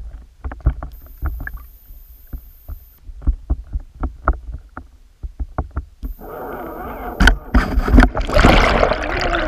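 Underwater recording of a northern pike striking a swimbait lure. First there are irregular clicks and knocks over a low rumble. Then a rush of churning water noise builds up, with a sharp knock about seven seconds in, and is loudest about eight to nine seconds in as the fish thrashes right against the camera.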